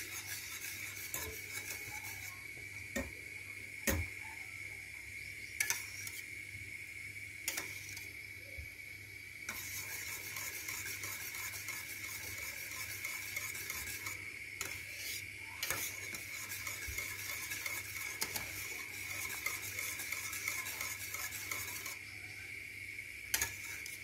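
Wire whisk stirring thick milk pudding cream in a stainless steel pot: a continuous scraping swish with scattered sharp clinks as the whisk strikes the pot. The cream is being cooked and whisked as it thickens and comes up to a bubble.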